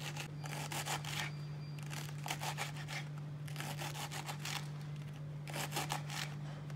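Kitchen knife finely chopping mustard-green stalks on a wooden cutting board: quick runs of crisp taps and crunches as the blade cuts through the stems onto the wood. A steady low hum sits underneath.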